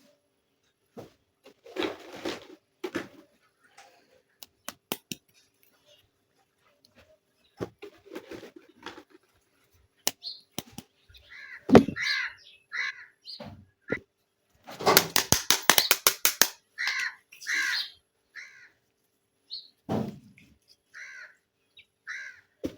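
Small plastic toy kitchen pieces being handled: scattered clicks, taps and light rustling, a quick rattle of rapid clicks about two-thirds of the way in, and several short squeaky chirps.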